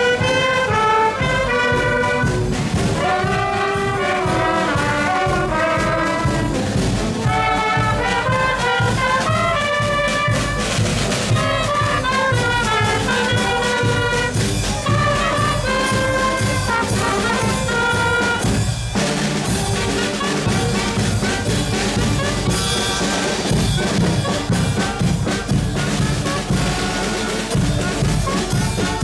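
Parade band playing a lively marching tune, with brass carrying the melody over a steady drum beat. The melody breaks off briefly near two-thirds of the way through, then picks up again.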